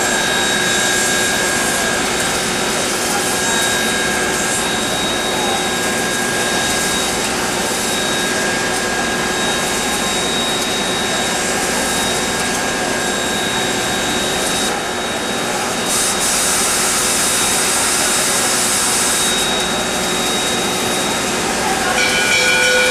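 CN 3254, a 2-8-2 steam locomotive standing on a turntable, hissing steadily with steam. A brighter, higher hiss of escaping steam joins in for a few seconds about two-thirds of the way through.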